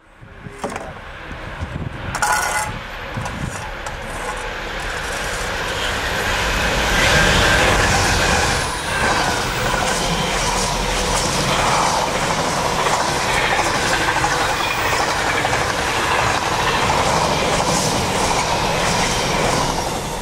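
Class 66 diesel locomotive 66592 hauling a long container freight train past: the locomotive, then a steady clatter of intermodal wagons running over the rails, with a brief high tone about two seconds in.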